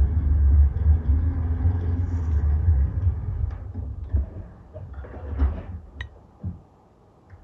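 White Peerless VS1 vintage sewing machine running to wind its bobbin, a low rumble that fades out about four seconds in as the winding stops. A few light handling knocks follow, with one sharp click near the end.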